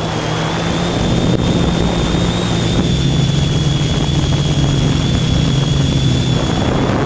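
Electric motors and propellers of an FPV multirotor in flight, picked up by its onboard camera: a steady drone with a low hum that shifts slightly in pitch, a thin high whine and rushing noise.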